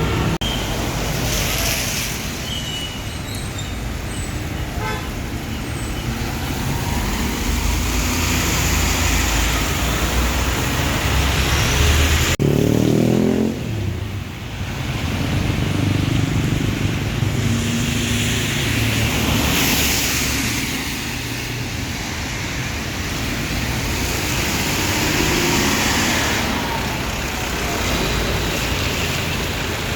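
Busy road traffic, with vehicles passing one after another and brief horn toots. About thirteen seconds in, a heavy engine passes close by, falling in pitch.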